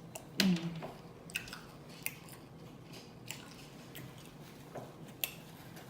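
Close-miked chewing of chicken wings: wet mouth smacks and clicks every second or so. A short voiced sound from the eater comes about half a second in and is the loudest part.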